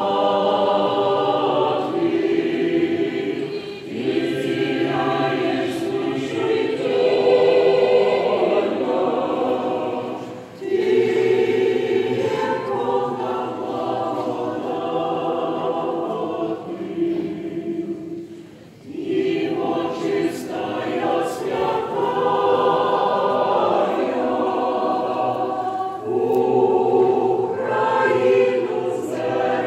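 Church choir singing liturgical chant in long sustained phrases, with brief breaks between phrases about ten and eighteen seconds in.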